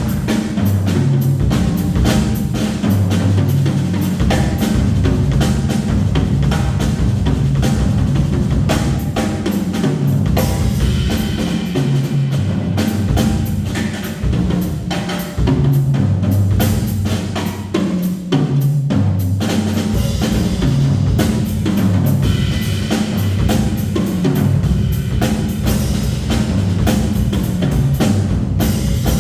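Live small-group jazz with the drum kit to the fore: busy snare, cymbal and bass-drum playing over a moving low bass line.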